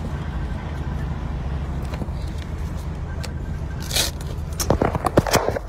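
A steady low vehicle rumble, heard from inside the vehicle, with a short hiss about four seconds in and a quick run of knocks and clatter near the end.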